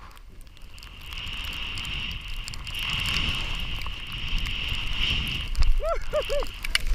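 Snowboard riding through deep powder: wind buffeting the helmet-mounted microphone and snow rushing and hissing under the board, growing louder after about a second as speed builds. Near the end a person gives three short whoops.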